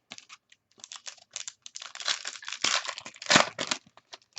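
A foil trading-card pack wrapper being torn open and crinkled by hand: a run of crackling strokes, densest and loudest about two to four seconds in.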